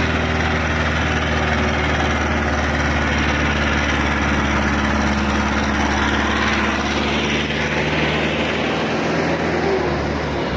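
Massey Ferguson 385 tractor's four-cylinder diesel engine running steadily under load as the tractor drives past, its note fading near the end.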